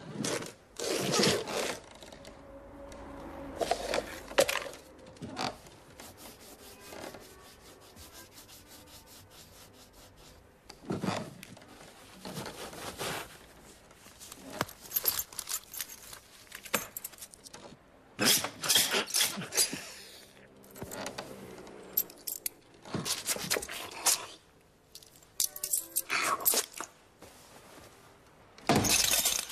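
Close, exaggerated handling sounds of small objects: scrapes, rubs and small jangling clicks, coming in scattered bursts with quieter stretches between.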